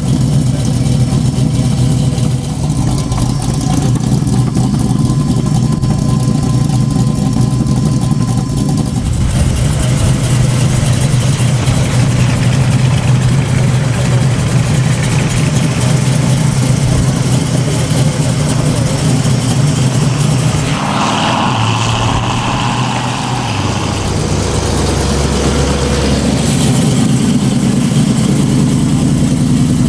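Pontiac Firebird V8 idling steadily. Its note changes about two-thirds of the way through, and the car moves off slowly near the end.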